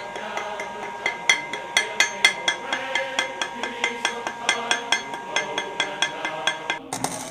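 A welder's chipping hammer striking freshly welded 1/8 inch steel: a rapid run of ringing metal-on-metal hits, about four a second, that stops abruptly near the end.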